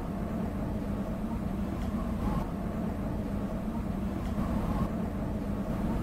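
A steady, deep rumble that holds level throughout, with no distinct events.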